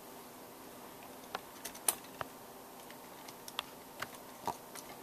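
Scattered light clicks and taps of an AR-15's front and rear takedown pins being pushed out of the receiver, the loudest about two seconds in.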